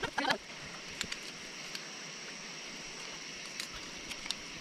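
Steady outdoor background of a river flowing, an even rushing noise, with a few faint ticks.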